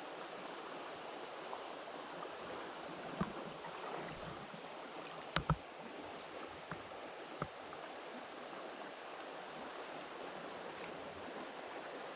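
Creek water running steadily, with a few brief sharp knocks, the loudest a quick pair about five and a half seconds in.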